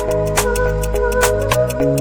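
Background music with a steady beat and held chords; the bass changes about one and a half seconds in.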